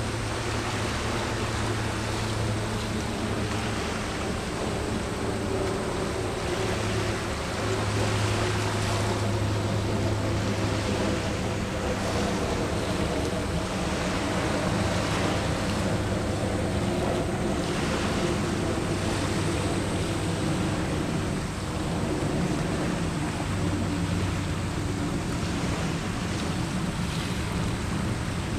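Small waves washing against the shore in soft, repeated swells, over a steady low drone of ship engines.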